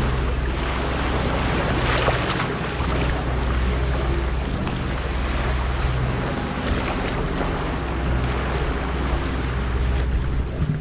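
A boat under way at sea: water rushing and splashing along the hull, with wind buffeting the microphone and a steady low hum underneath. A louder splash comes about two seconds in.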